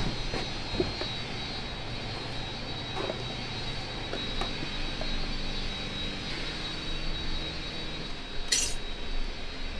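Steady hum of kitchen machinery with a thin high whine, under light knocks and clinks of stainless-steel food containers and utensils. A short sharp metallic rattle comes near the end.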